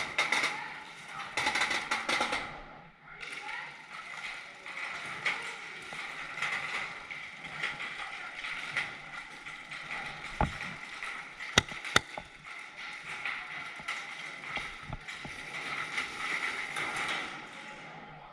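Paintball skirmish with a steady hiss and faint distant voices, broken by a few sharp paintball cracks. Two of the cracks come close together about two-thirds of the way through.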